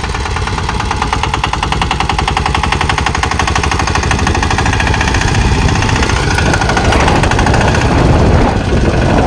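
Engine of a sanedo, a homemade motorcycle-based farm tractor, running with a rapid, even chugging beat as it drives over the field, growing gradually louder.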